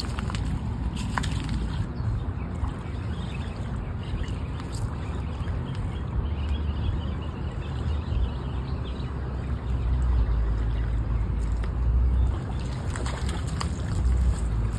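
Wind buffeting the microphone outdoors: a low, uneven rumble that swells in gusts in the second half.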